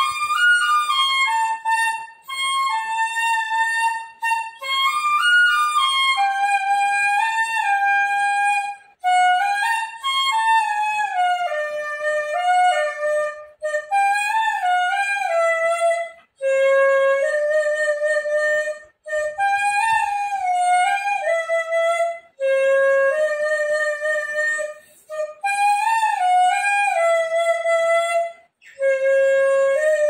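An old black bamboo dizi (Chinese transverse flute) in F plays a slow solo melody, in short phrases with quick breaths between them.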